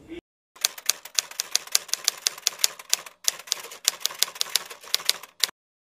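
Typewriter typing sound effect: a rapid run of sharp key clicks, about eight a second, with a brief break near the middle. It goes with a question being typed out as on-screen text.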